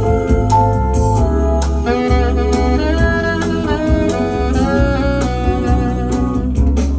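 Band music with a drum kit keeping a steady beat, a heavy bass line and a wavering melody line on top that sounds like saxophone.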